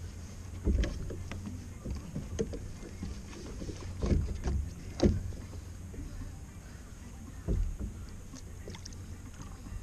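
Water sloshing against a fishing kayak's hull, with several sudden knocks or splashes, the loudest about five seconds in.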